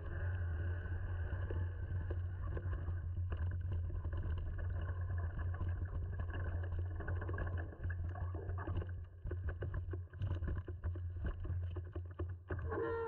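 Mountain bike rolling down a rooty dirt singletrack: tyres on dirt and roots, with frequent clicks and knocks from the bike rattling over the bumps, over a steady low hum.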